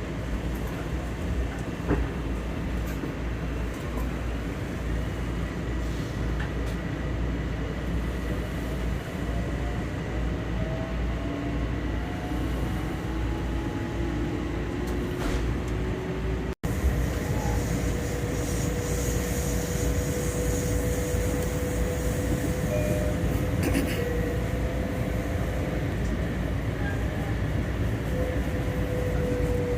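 Long Island Rail Road electric commuter train heard from inside a moving car: a steady rumble of wheels on the track under a motor whine that rises slowly in pitch, then holds steady and sags a little near the end. The sound drops out for an instant about halfway through.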